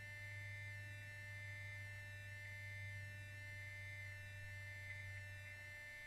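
Steady electrical hum with a thin high buzz over it, unchanging throughout: noise in the nest camera's audio feed.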